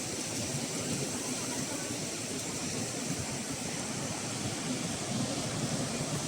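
Steady rushing of sea surf breaking on a rocky, sandy shore, an unbroken wash of noise at an even level.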